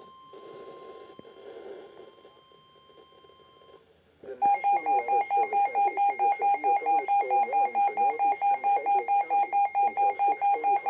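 NOAA weather alert radios sounding a Severe Thunderstorm Warning: a steady high warning tone with a broadcast voice faintly under it, then, about four seconds in, a loud rapid alert beeping, about four to five beeps a second, over the broadcast voice.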